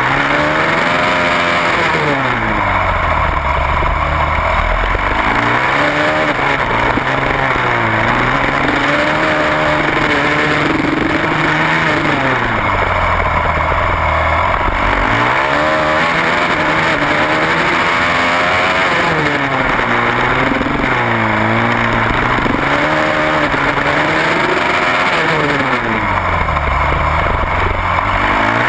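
Racing supermoto motorcycle engine heard from on the bike, revving hard and dropping back again and again as the rider accelerates out of one corner and brakes into the next. A steady rush of wind runs under it.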